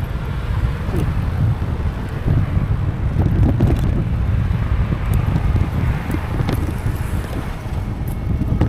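Wind buffeting the microphone of a camera on a moving e-bike: a loud, gusty low rumble, with the road noise of the ride under it.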